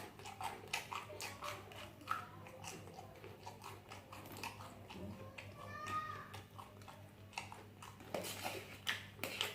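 Close-up chewing and biting of sausage: a run of wet mouth clicks and smacks. A brief squeaky tone sounds about six seconds in, over a steady low electrical hum.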